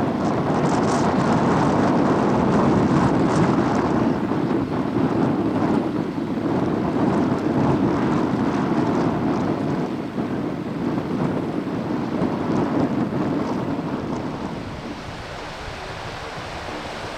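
Steady rushing noise with wind buffeting the microphone, easing off near the end.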